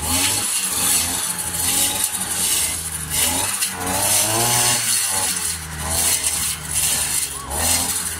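Petrol brush cutter running under load as it chops dried grass into straw, with a hiss of cut hay over the engine note. The engine pitch sags and recovers several times as the blade bites into the grass.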